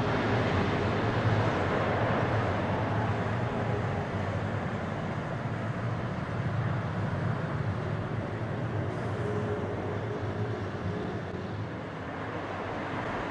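Boeing 777's twin jet engines running as the airliner comes in and touches down: a steady wash of jet noise with a deep rumble underneath, slowly fading as it goes by.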